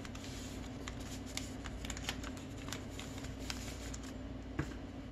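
Folded colored paper (origami paper) crinkling and rustling as hands unfold and flatten it, in many short, irregular crackles.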